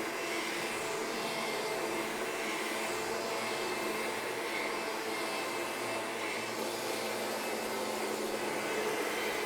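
Bagged vacuum cleaner with a belt-driven brush roll running steadily over carpet: an even rush of suction noise with a faint steady hum under it.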